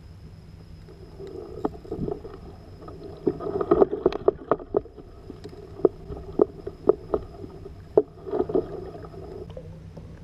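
Irregular knocks and water sloshing against the plastic hull of a Hobie Revo 16 fishing kayak as a fish is fought from it, over a steady low hum.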